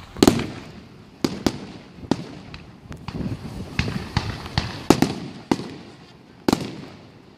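Aerial firework shells bursting: about a dozen sharp bangs at irregular intervals, each followed by a low rumbling echo.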